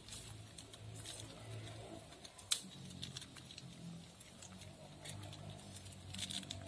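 Wood cooking fire crackling under a wok, with scattered small pops and one sharper pop about two and a half seconds in, over a low steady hum.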